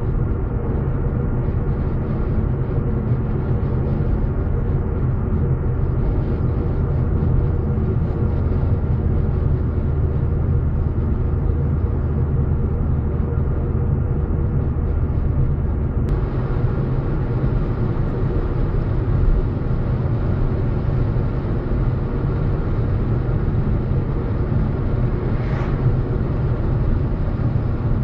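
Ford Focus ST225's turbocharged five-cylinder engine and tyres heard from inside the cabin while cruising on an open road: a steady low drone. The low hum changes a little past halfway through.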